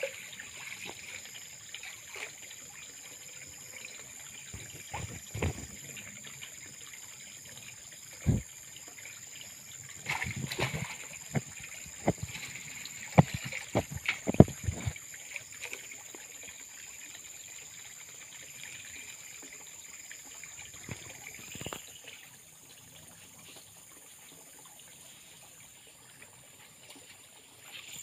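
Pond water sloshing and splashing as a man wades waist-deep and sweeps a landing net through it, in irregular splashes, thickest about a third to halfway through, over a steady faint high-pitched hum.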